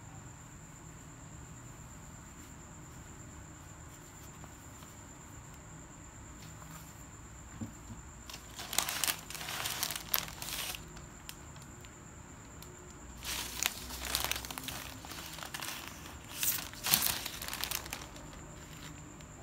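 Crinkling of a flower bouquet's purple wrapping sheets as they are handled, in two stretches: one of about two seconds starting about eight seconds in, and a longer one from about thirteen seconds in.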